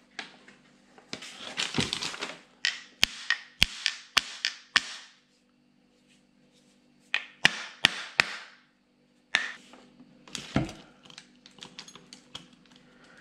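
Sharp metal taps and knocks on a Peugeot-Citroën HDI starter motor's housing, struck to free its stuck screws, mixed with the clatter and rustle of parts being handled. The strikes come in two clusters, one a few seconds in and one around the middle.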